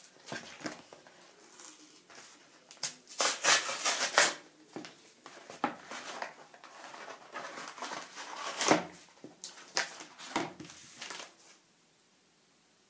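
A paper mailing envelope being torn open and its contents pulled out, in irregular bursts of tearing and paper crinkling that fall quiet near the end.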